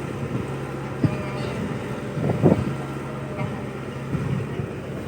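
Excavator's diesel engine running with a steady low hum, with brief louder sounds about a second in and again about two and a half seconds in.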